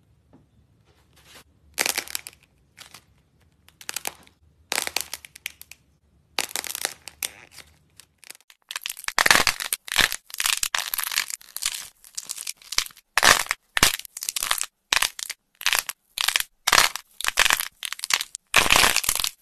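Hardened glossy top coat on lightweight air-dry clay cracking and crinkling as the clay is squeezed and torn apart by hand. Scattered crackles at first, then dense, rapid crackling from about nine seconds in.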